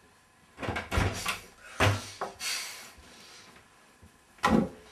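A wooden interior door being opened: a series of clicks and knocks from the handle, latch and door in the first few seconds, and another short knock near the end.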